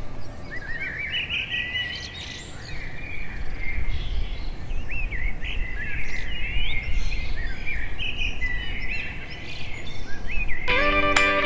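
Several songbirds chirping and singing in short, quickly rising and falling phrases over a low steady rumble. Guitar music comes in near the end.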